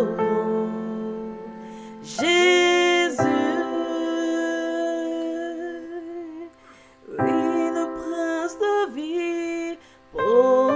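Slow worship music: sustained keyboard chords, with a woman's voice singing drawn-out notes in short phrases and gaps between them.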